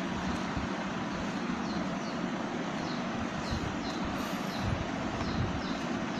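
Steady background noise, like room or traffic rumble, with faint short high chirps repeating about every half second.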